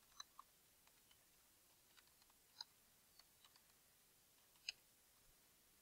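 Faint computer keyboard keystrokes, sparse and irregular, as an email address is typed.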